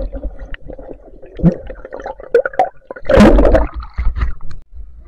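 Muffled underwater gurgling and knocking picked up by a submerged action camera, with a loud rush of water about three seconds in as the camera breaks the surface.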